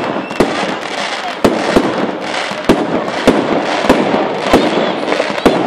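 Fireworks display: aerial shells bursting in irregular succession, a sharp bang about once or twice a second over continuous crackling.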